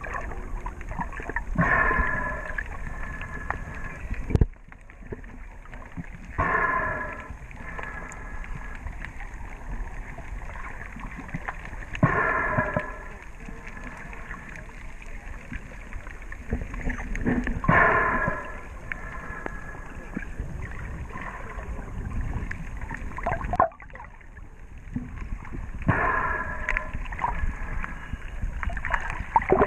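Muffled sloshing of water against an underwater camera, with a snorkeller breathing through the snorkel about every five to six seconds, five breaths in all, each about a second long with a pitched, hollow tone.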